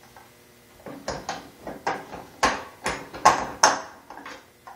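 Torque-converter clutch parts knocking and clinking by hand as they are fitted onto a small engine's shaft: about a dozen short, sharp knocks starting about a second in, loudest in the middle.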